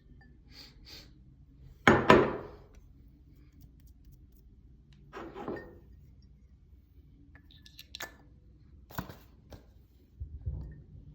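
Cologne box and bottle being handled in an unboxing: two loud knocks about two seconds in, a softer scrape a few seconds later, then a few light clicks and a dull thud near the end.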